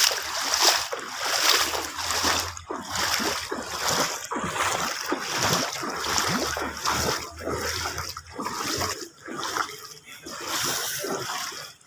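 Floodwater splashing.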